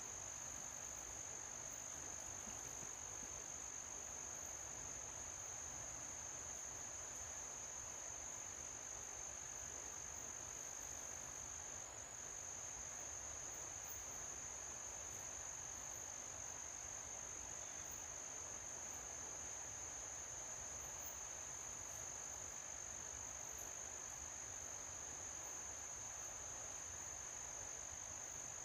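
Crickets trilling in one steady, high-pitched, unbroken note, with a brief dip about twelve seconds in, over a faint night-time background hiss.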